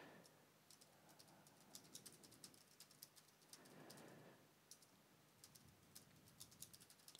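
Faint computer keyboard typing: irregular runs of light keystrokes as a line of text is typed.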